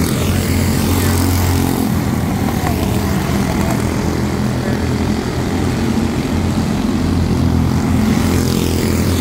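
A pack of Honda-powered quarter midget race cars running on a dirt oval, their small single-cylinder engines making a steady buzz. The sound eases a little around the middle as the pack works the far turn and swells again near the end as cars come past close by.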